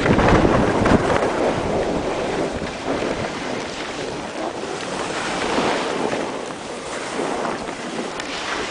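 Wind rushing over the microphone mixed with skis hissing and scraping on snow during a downhill run, swelling and easing in uneven surges.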